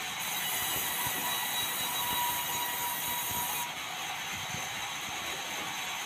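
Sawmill machine saw ripping a red meranti board lengthwise: steady running noise with a high hiss from the cut that drops away a little past halfway.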